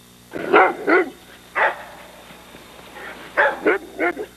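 A dog barking: about six short barks in two groups, three in the first second and a half and three more near the end.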